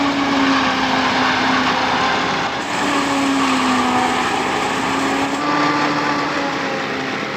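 A machine engine running steadily and loudly, its pitch wavering slightly.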